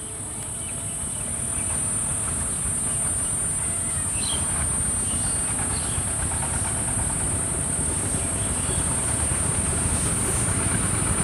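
Diesel locomotive hauling a passenger train approaching on the track, its engine rumble growing louder over the first couple of seconds and then holding steady. A steady high-pitched whine runs underneath.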